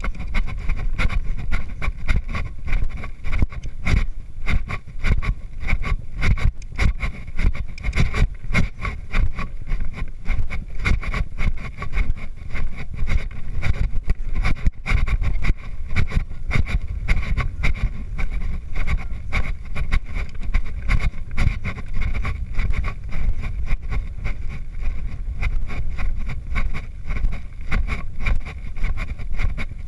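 Wind buffeting and jolting on a rider-worn camera's microphone while a horse canters over a jumping course on sand: a loud, uneven rumble crowded with knocks and thuds.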